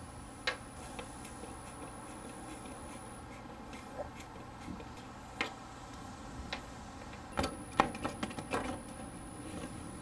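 Scattered light clicks and taps of a screwdriver and the plastic front bumper cover being handled. A quick run of sharper plastic clacks comes about seven to nine seconds in.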